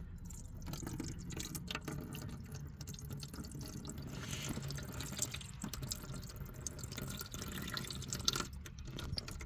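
Engine oil running out of the open drain-plug hole in the oil pan of a 1973 Ford 4500 diesel backhoe, a steady stream with many small drips and splashes. The crankcase is overfull, a sign of water or fuel mixed into the oil, and water comes out once the oil has drained.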